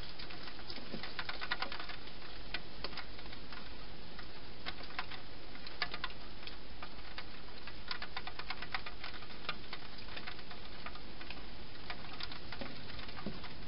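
Wild European hedgehog chewing dry food: irregular crunching clicks, some in quick runs, over a steady hiss.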